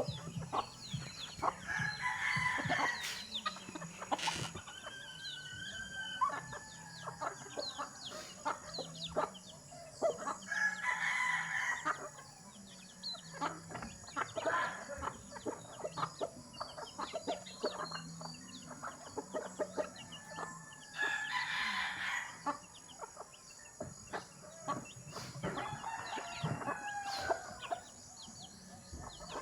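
Chickens clucking and calling at feeding, with several louder calls standing out and many short taps and clicks throughout.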